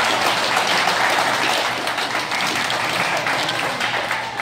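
A group of people clapping their hands in sustained applause, a dense, steady patter that eases off a little near the end.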